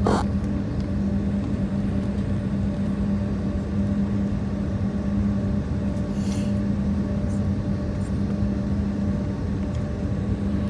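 Jet airliner cabin noise heard from a window seat beside the engine: the engines run steadily as the plane moves along the ground, a steady hum and rumble with a constant low droning tone.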